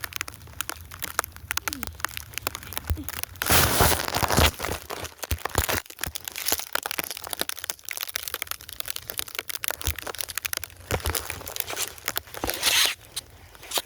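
Snow crunching and crackling as it is packed and smoothed by hand, with two louder scraping rushes, one about four seconds in and one near the end.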